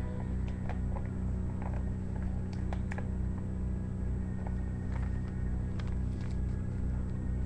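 Paper envelope being handled and its flap sealed: light rustles and scattered small taps, over a steady low hum.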